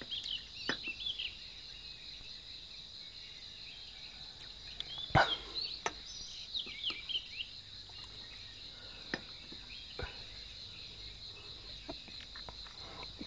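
Birds chirping over a steady high-pitched insect drone, with a few sharp clinks of a teapot and teacups, the loudest about five seconds in.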